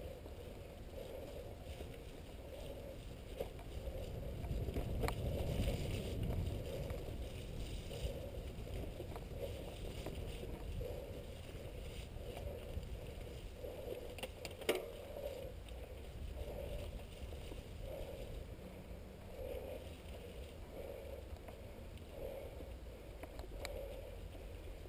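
Mountain bike riding a snowy dirt singletrack, heard from a camera on the bike or rider: a steady low rumble of tyres and wind on the microphone, with a soft sound repeating a bit faster than once a second and a few sharp clicks and rattles, the loudest about 15 seconds in.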